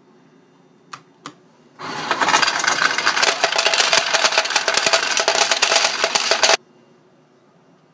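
Two sharp clicks, then a fruit machine's coin hopper dumping its coins: a loud, rapid clatter of coins pouring out for about five seconds that stops suddenly, as the hopper runs empty.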